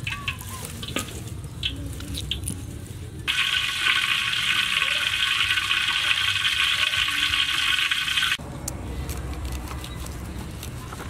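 Knife cutting boiled pork belly on a wooden board, with small clicks; about three seconds in, a loud, steady sizzle of pork belly deep-frying in hot oil, which cuts off suddenly after about five seconds.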